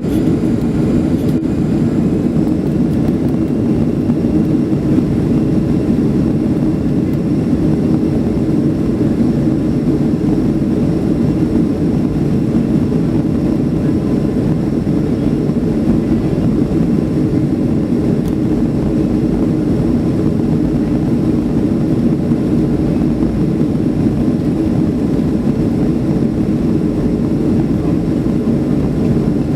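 Boeing 737-300's CFM56 jet engines at take-off thrust, heard inside the passenger cabin as a loud, steady, deep roar that does not change.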